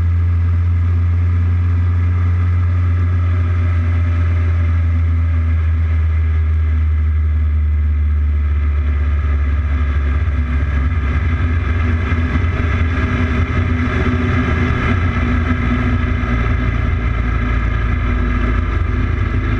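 Motorcycle engine running at a steady cruise, with wind rushing over the microphone. In the second half the low hum turns rougher and the wind noise grows louder.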